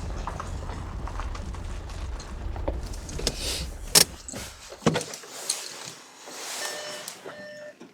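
Low rumble of a car, heard from inside, that cuts off suddenly about five seconds in, with a few sharp clicks and knocks and some rattling around that point.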